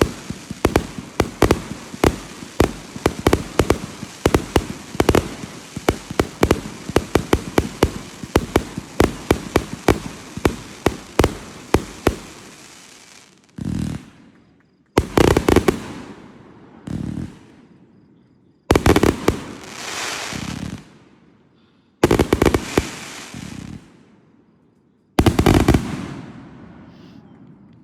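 Aerial fireworks going off: a dense, rapid barrage of bangs for the first dozen seconds, then several separate loud volleys a couple of seconds apart, each trailing off in a rumbling echo.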